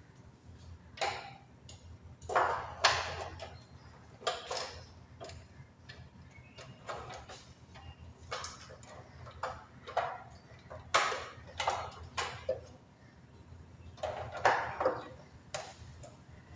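Irregular clicks and knocks of hard plastic parts and a screwdriver being handled while a plastic holding piece is fitted over the evaporator coil of a split air conditioner's indoor unit.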